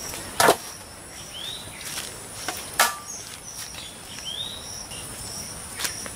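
Raw goat meat pieces set down into an aluminium tray, landing with three knocks, the second with a brief metallic ring. Insects chirp steadily behind.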